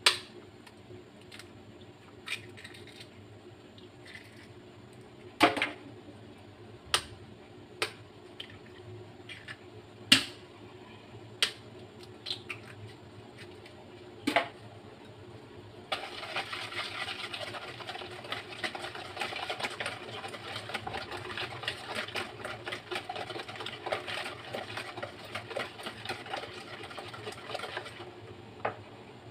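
Eggs being cracked into a plastic bowl, a series of sharp knocks a second or two apart. About halfway through, a wire whisk starts beating the eggs in the plastic bowl, a fast, steady clatter that stops shortly before the end.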